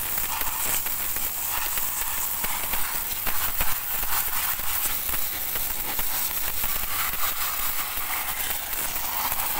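Pressure washer jet blasting a vehicle's brake drum and the wet concrete beneath it: a steady hiss of spray with constant spattering of water.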